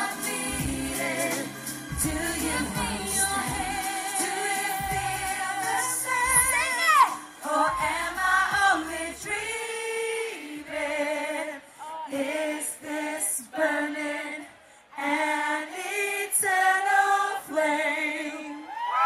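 Female pop vocal trio singing live into microphones over a backing track. About seven seconds in, the bass and beat drop away and the voices carry on in harmony on long held notes.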